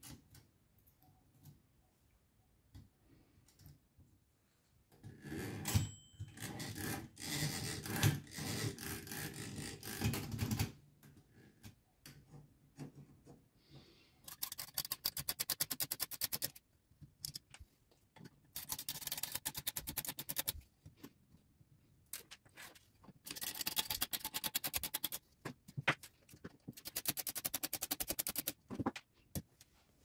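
Screwdriver undoing the body screws of an Olivetti Lettera 22 portable typewriter, heard as four bursts of rapid, even clicking of about two seconds each. Before them comes a stretch of scraping and handling noise on the metal machine.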